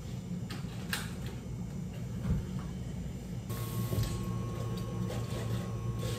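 Cafe counter work: a few knocks and clinks over a steady low machine hum. About halfway in, a small machine starts up and runs with a steady whine and hiss.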